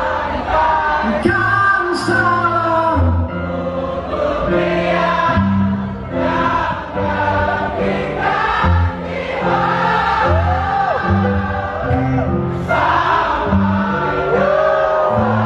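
Live band playing a song while the crowd sings along in a mass of voices, heard from within the audience.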